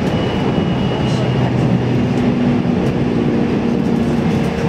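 JR Central 313 series electric train running along the track, heard from inside the car: a steady rumble of wheels on rail with the humming tones of its motors. A thin high whine sounds over it for the first second and a half.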